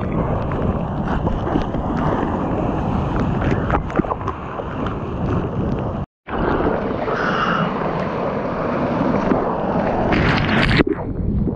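Seawater rushing and splashing around a waterproof GoPro held at water level while riding a wave, with wind buffeting the microphone. The sound breaks off briefly about halfway, and near the end it swells as whitewater washes over the camera.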